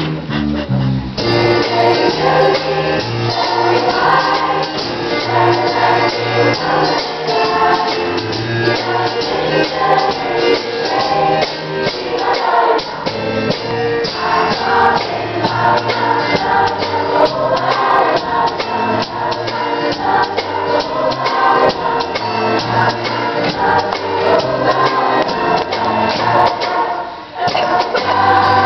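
A girls' choir singing an upbeat pop song together over instrumental accompaniment with a steady beat. The music drops out briefly near the end, then picks up again.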